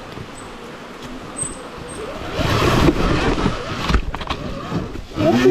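Sur Ron Ultra Bee electric dirt bike being ridden on a trail: its motor whine rises and falls with the throttle over steady riding noise, growing louder about two seconds in. There are a few knocks near the middle and a sharp rise and fall in the whine near the end.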